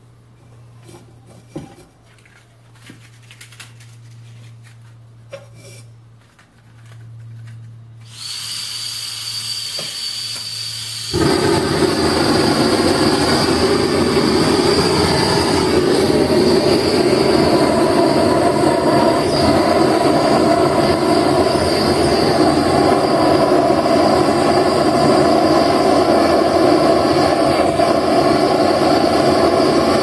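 A few clicks of handling, then an LPG gas torch hisses as the gas is turned on about eight seconds in. It lights about three seconds later and burns loudly and steadily, firing a clay flower-pot furnace.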